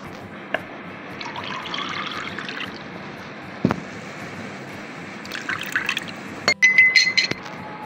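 Water poured from a glass jug into a drinking glass with a metal spoon standing in it, splashing and trickling. Near the end come several sharp, ringing clinks of glass and spoon.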